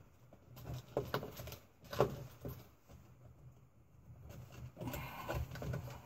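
Small clicks and knocks from hands working wiring and connectors behind a UTV dash panel, a few sharp ones about a second and two seconds in, with the ignition keys jangling.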